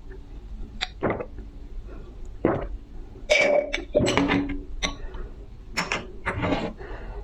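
Close-miked drinking: a series of short gulps and slurps about once a second, with a denser run of swallows about three to four and a half seconds in.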